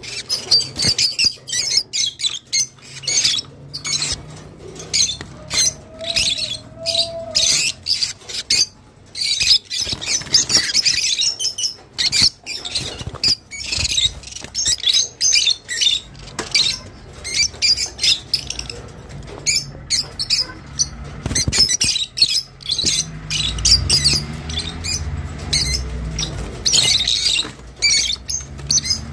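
Rosy-faced lovebirds chattering: a dense run of rapid, shrill chirps and squawks, one over another, with no pauses.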